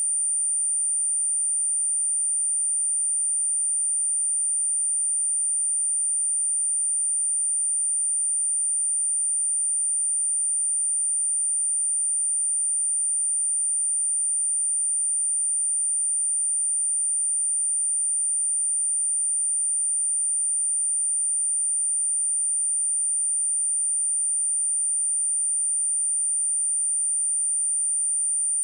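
A pure 9075 Hz sine-wave test tone, high-pitched and held perfectly steady at one level, played to test a speaker or to shake water and dust out of it.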